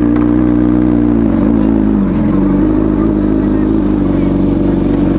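Motorcycle engine running steadily under way, its revs dropping briefly about a second and a half in and then picking back up.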